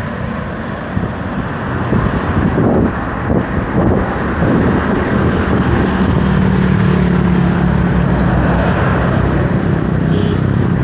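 Road traffic: vehicle engines and tyre noise on a busy road. A steady engine hum grows louder about two seconds in.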